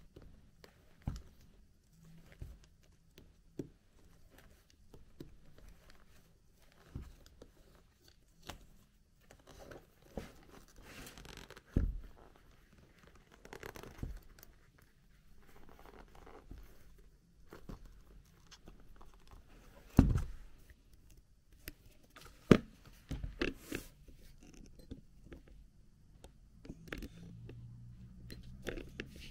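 Leather buckle sandals being handled: metal buckles clinking, and leather and tissue-paper packing rustling and scraping. A few sharp knocks stand out, the loudest about two-thirds of the way through.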